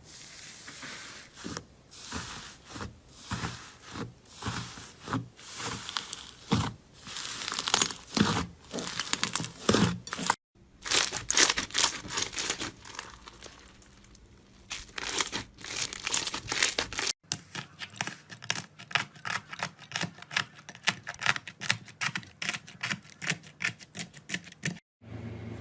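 Slime being pressed and squeezed by hand, giving crackling, crinkly squelches in repeated strokes that come faster after the sound changes abruptly about two-thirds of the way in.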